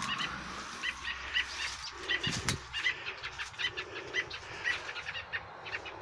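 American robin giving repeated short, sharp alarm calls, about two or three a second: a parent bird agitated by a snake raiding its nest. A brief thump comes about two and a half seconds in.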